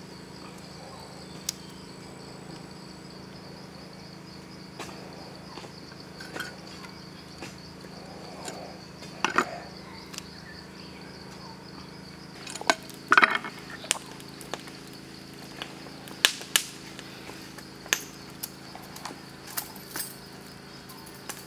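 Steady high-pitched insect drone from the forest, with scattered sharp clicks and knocks from the crocodile and tools being handled, the loudest a cluster from about nine to seventeen seconds in.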